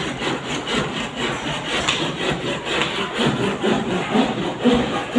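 Rapid rhythmic scraping strokes, about four to five a second, with the rasping sound of hand sawing.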